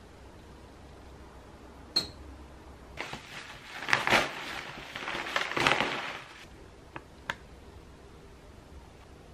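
A plastic bubble-wrap bag crinkling and rustling as it is handled and lifted out of a delivery box. There is a sharp plastic click a second or two before it, and two short ticks near the end.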